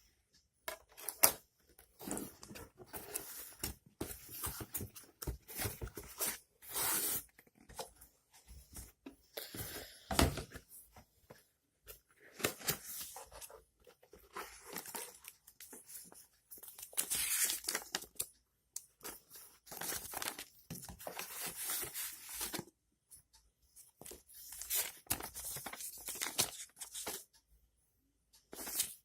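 Packaging being handled by hand while unboxing a portable DVD player: irregular bursts of tearing and crinkling with short pauses, and a sharp click about a second in.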